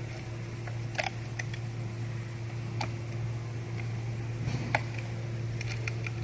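Scattered light clicks and taps of small plastic parts being handled while a robot vacuum is taken apart, over a steady low hum.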